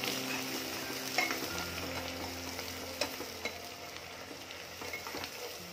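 Sliced onions sizzling as they fry in hot mustard oil in an aluminium pot, stirred with a steel ladle that scrapes and gives a few light clicks against the pot.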